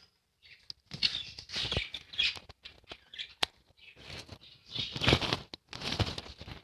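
Pet budgerigars in a cage: irregular rustling and wing flutters, with a few short chirps and sharp clicks.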